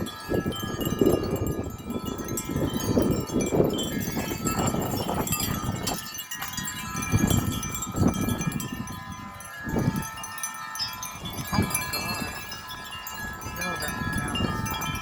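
Several wind chimes ringing continuously in strong gusty wind, many overlapping metallic tones sustaining, with wind buffeting that swells and drops every second or so.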